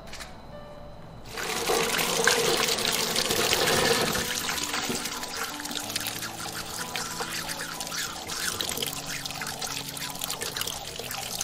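Running water pouring into a stainless-steel basin of winged beans, starting suddenly about a second in and loudest for the first few seconds, while hands rub and swish the beans clean.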